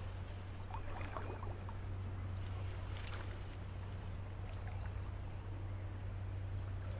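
Steady outdoor ambience on an action camera's microphone by a river: a constant low rumble with an even hiss of wind and moving water. A few faint short sounds come about a second in and again about three seconds in.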